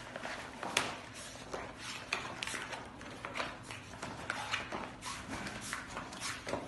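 Pages of a wallpaper sample book being turned one after another: the stiff sample sheets rustle and flap, with a sharp crackle every half second or so.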